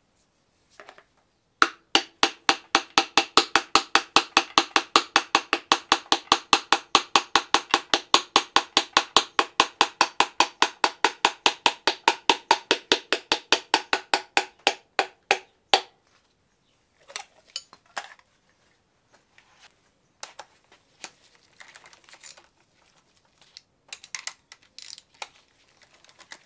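A piston being tapped down through a ring compressor into a cylinder of a VW 1.6 L diesel block. It makes a fast, even run of ringing taps, nearly five a second, which starts about two seconds in and stops suddenly after some fourteen seconds. Scattered light clicks and knocks of tools on the engine follow.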